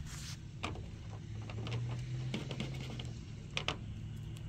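Battery-powered bubble gun's small motor whirring steadily, growing stronger about a second in, with a few sharp clicks along the way.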